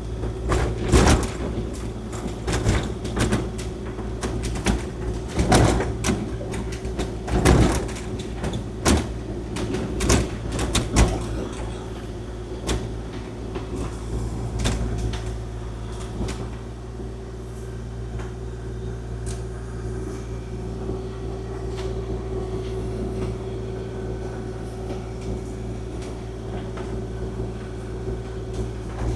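Kubota KX040-4 mini excavator's diesel engine running steadily while its blade pushes snow. Repeated clunks and rattles come through the first twelve seconds or so as the machine bounces on snow frozen to its tracks: a rough ride. After that the knocks die away and the engine runs on evenly.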